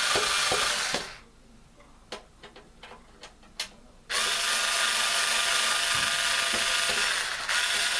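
Power screwdriver or drill driver running in two bursts, a short one ending about a second in and a long one starting about 4 s in, while backing out the screws that hold the box fan's grill. Between the bursts come small clicks and knocks of handling.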